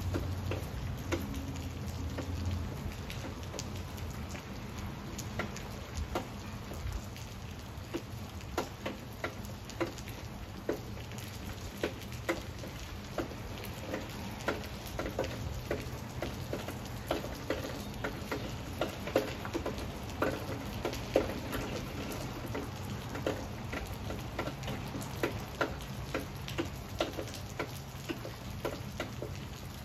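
Steady rain falling on dense leafy foliage, with many individual drops striking sharply at irregular intervals, a few a second and busiest in the middle stretch.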